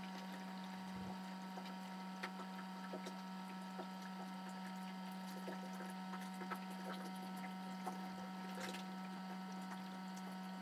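A faint, steady electrical-sounding hum with scattered small ticks.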